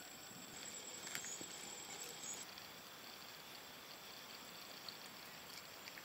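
Quiet background with a faint, steady high-pitched whine and a few soft clicks of chopsticks and eating from a bowl.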